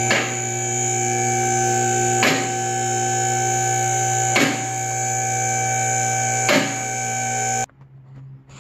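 Electric-hydraulic power unit of a vehicle lift running with a steady hum while raising the mini truck, with a sharp click about every two seconds; the motor cuts off abruptly near the end.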